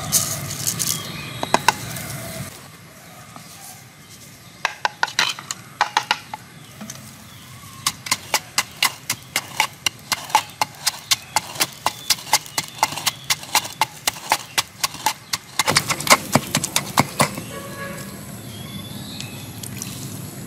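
Wooden pestle pounding salt and red chilli in a wooden mortar: sharp knocks in bursts, with a long steady run of about three strokes a second in the middle.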